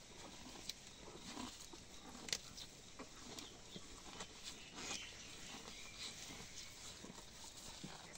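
Quiet sounds of cattle feeding in a stall: a calf suckling at its mother's udder and a cow eating fresh grass, heard as scattered soft clicks, smacks and rustles, with one sharper knock about two seconds in.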